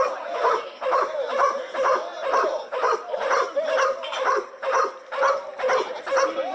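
Protection-trained dog barking over and over at an approaching man, about two barks a second, in a steady rhythm.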